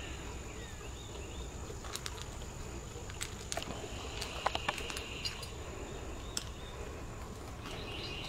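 Outdoor crickets chirring steadily, swelling in the middle and again near the end, with scattered small clicks and clinks as a cat eats from a small metal bowl.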